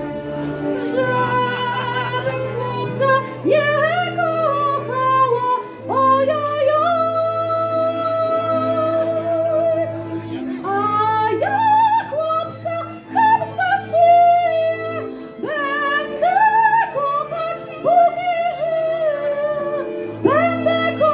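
A woman singing a folk song into a microphone with vibrato, amplified through the stage loudspeakers, over an accompaniment of sustained low chords that change every couple of seconds.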